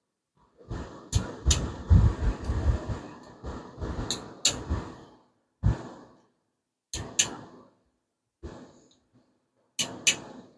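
Click-type torque wrench on the 5.7 Hemi's rocker arm bolts, giving a quick pair of sharp clicks about every three seconds as each bolt is re-checked and already at torque. Between the clicks the socket clatters as it is moved from bolt to bolt.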